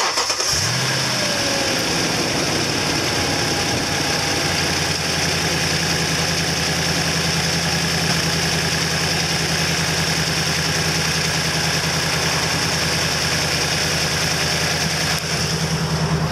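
2008 Toyota Tundra's 5.7-litre V8 idling steadily, heard close up from the open engine bay.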